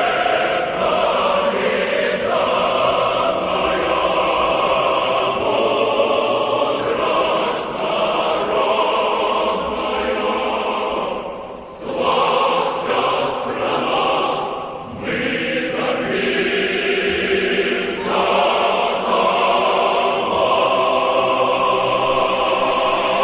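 Choral music: many voices singing or chanting long held notes, dipping briefly twice near the middle.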